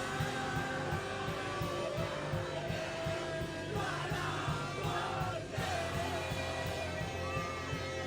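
Rock song with a steady beat and a sung vocal line.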